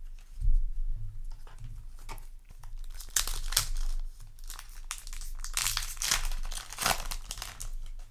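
Foil trading-card booster pack wrapper crinkling as it is handled, with a dense run of rustles through the middle. There is a low thump about half a second in.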